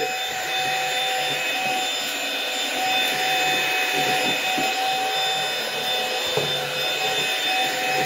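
PrettyCare W400 cordless stick vacuum running with its soft-bristle brush roll on, sweeping up dirt and leaf debris from a hard floor. It is a steady, not-that-loud motor noise with a few thin, high whining tones held throughout.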